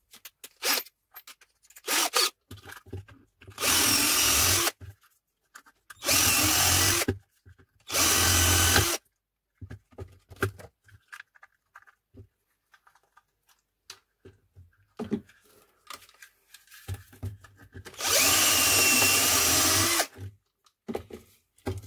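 Power drill running in four short bursts, the last about two seconds long, drilling out the rivets of a miniature circuit breaker's plastic case with a thicker bit. Light clicks from handling the breaker come between the bursts.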